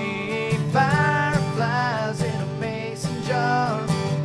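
Country music: a guitar-backed country song, with a bending lead melody line over a steady accompaniment.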